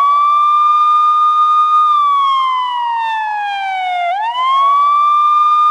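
A siren sound effect: one loud wailing tone holds steady, slides slowly down for about two seconds, then swoops back up and holds.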